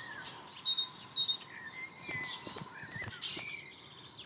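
Small songbirds chirping and calling, a scatter of short high notes and quick little glides with no steady rhythm.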